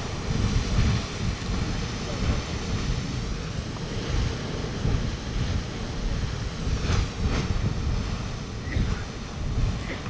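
Grand Geyser, a fountain-type geyser, erupting: a steady rushing of water jetting up and splashing back down, with wind rumbling on the microphone.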